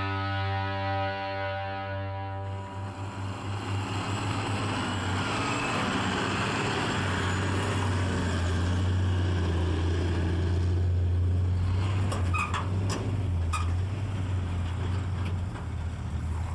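An electric-guitar music track ends about two seconds in. Heavy construction machinery engines then run with a steady low rumble, with a few short sharp sounds near the end.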